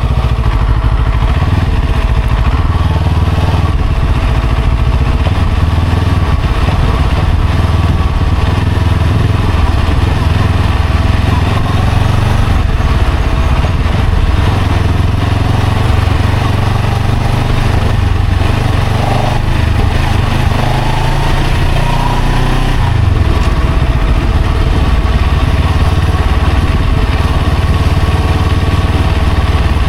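Motorcycle engine running while it is ridden through traffic, under a steady loud low rumble. The engine note rises for a moment about two-thirds of the way through.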